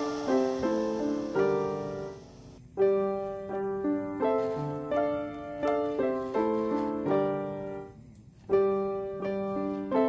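Background piano music: a melody of plucked-sounding notes that fade after each strike, breaking off briefly twice.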